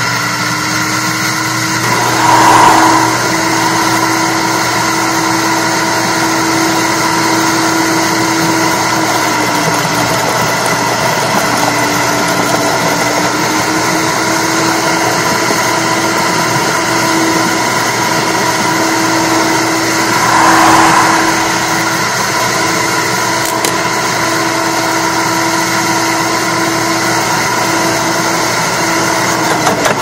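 Electric wood chipper with a 15-amp motor running with a steady whine. Its pitch sags for a few seconds near the middle, and there are two louder rough swells, about 2 seconds in and about 21 seconds in.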